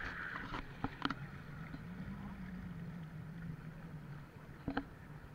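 Motorboat engine running at low speed as a steady low hum that rises slightly about two seconds in, with water washing along the hull. Two short knocks sound about one second in and near the end.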